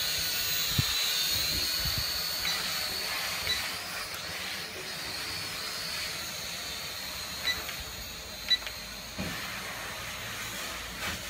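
SYMA X5C quadcopter's four small coreless motors and propellers whining steadily overhead, the pitch wavering slightly as it manoeuvres, over a steady hiss. The whine grows fainter after a few seconds as the drone flies off, and two short sharp ticks come near the end.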